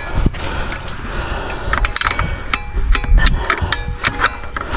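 Metal hitch hardware clinking and knocking as a game cart is hooked up to an e-bike: a run of sharp clicks and taps, some with a short metallic ring.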